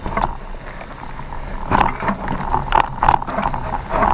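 Bicycle rattling and clattering over a rough off-road forest trail, with a steady low rumble of tyres and wind on the microphone. Sharp knocks and rattles come thick from about two seconds in.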